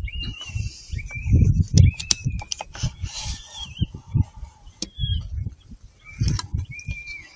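Electronic predator call playing a prey distress sound: a run of short, high, wavering cries that slide down in pitch, over irregular low rumbles.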